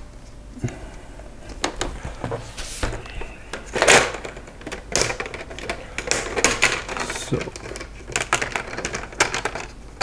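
The plastic screen bezel of an Acer Aspire 3 laptop being pried off the lid and fitted back by hand: irregular sharp clicks and plastic clatter as its retaining clips unsnap and catch, the loudest about four seconds in.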